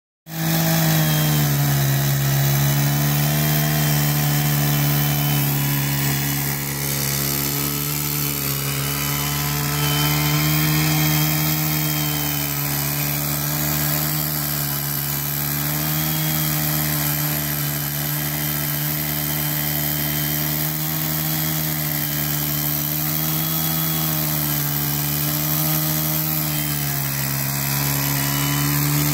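Two-stroke chainsaw in a chainsaw mill running steadily under load as it rips lengthwise through a large log, its engine note wavering slightly in pitch as the cut goes on.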